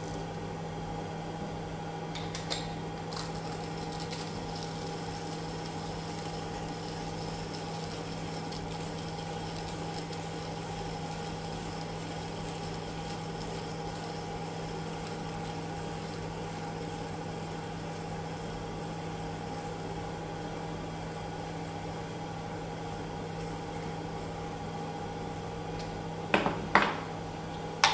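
Skywalker coffee roaster's cooling fan running with a steady hum, the roaster in its cool-down after the roast. A hand coffee grinder is cranked alongside it, with faint grinding, and a few light knocks come near the end.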